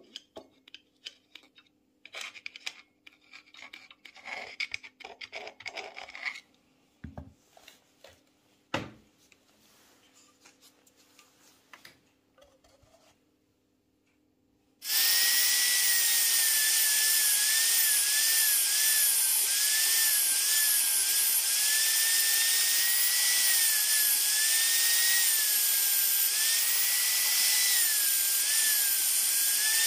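Light scattered clicks and scrapes of metal on aluminium. About halfway in, a compact trim router starts suddenly, spinning a spiral carbide burr that mills the aluminium crankcase wall. It gives a loud, steady high whine that repeatedly dips and recovers as the cutter takes load.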